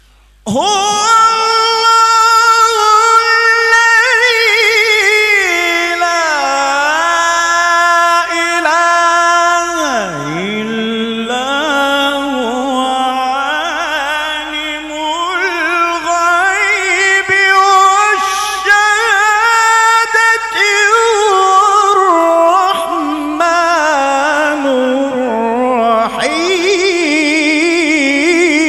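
A male qari chanting Quranic recitation (tilawah) in one long melodic phrase of held, ornamented notes, starting about half a second in. About ten seconds in his voice swoops down to a low note, then climbs back up step by step.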